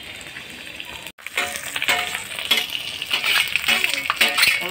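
Hot oil sizzling in an iron kadai over a wood fire: paneer cubes deep-frying, then, after a brief break in the sound about a second in, louder sizzling of chopped onion frying in the oil.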